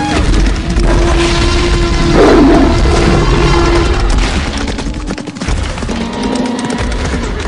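Animal stampede sound effect: a loud, dense rumble and clatter of many running hooves, with an animal roar a little after two seconds in as the loudest moment.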